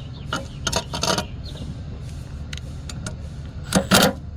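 Mounting hardware being handled: a few scattered metallic clinks and knocks, the loudest two close together near the end, over a steady low hum.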